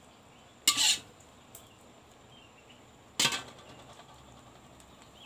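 Cooking utensil clattering against a pan twice, about two and a half seconds apart, as stir-fried water spinach is stirred at the end of cooking.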